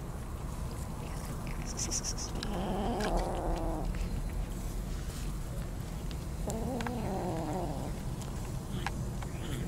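Kittens eating meat, with a steady low rumble underneath and two long drawn-out cat calls that rise and fall, each over a second long, about two and a half and six and a half seconds in. Scattered small clicks from chewing.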